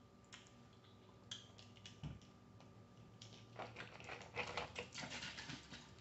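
Faint clicking and crackling of boiled crawfish shells being cracked and peeled by hand: a few scattered clicks at first, then a denser run of crackles between about three and a half and five and a half seconds in.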